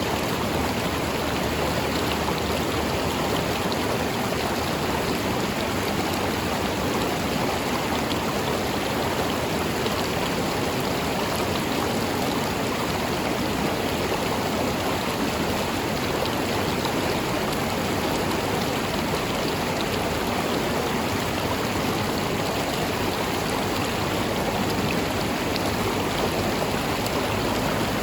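River water flowing steadily over rocks, a continuous even rush with fine splashing and trickling throughout.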